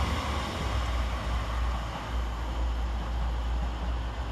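Class 185 diesel multiple unit running by on the station line: a steady low rumble with a broad rushing noise over it, slowly fading.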